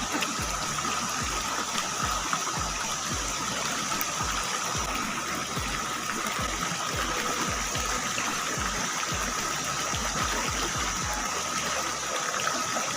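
River water rushing steadily, with a thin steady high tone and irregular low bumps underneath.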